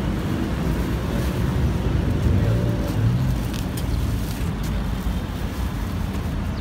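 Steady low rumble throughout, with a few faint crinkles of plastic shopping bags being lifted into a car boot a little past the middle.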